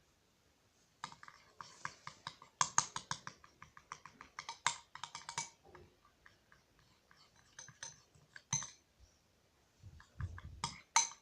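A utensil stirring glue and water in a container, making a quick run of small clicks and taps against its sides, then a few scattered taps and a short cluster near the end.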